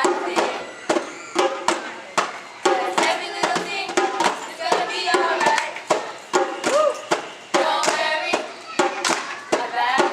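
Rhythmic hand clapping, roughly two claps a second, with children's voices singing over it.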